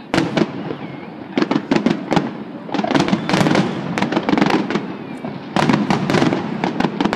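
Fireworks finale: volleys of aerial shell bursts going off in rapid clusters of bangs, one at the start, then near-continuous volleys from about a second and a half in, over a steady low rumble.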